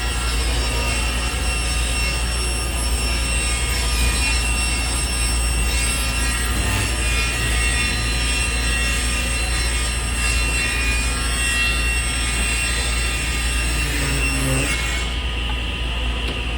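Steady mechanical running noise with a strong low hum and several steady high tones, unchanging until it cuts off just before the end.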